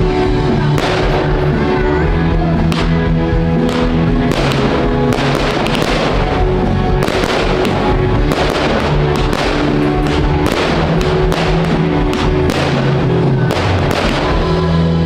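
Aerial firework shells bursting again and again, with sharp cracks and bangs at short, irregular intervals, over loud music with sustained notes.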